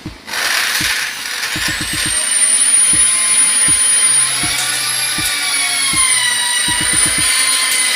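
Electric drill running with a steady high whine that starts about a second and a half in, wavering slightly and starting to wind down in pitch at the end, while screws are driven into a cable tray bend. Background music with a drum beat runs underneath.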